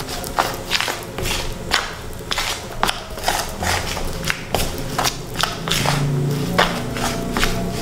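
Metal utensil scraping and clicking against a mixing bowl while stirring crumbly flour-and-margarine dough, with sharp irregular clicks about two to three a second.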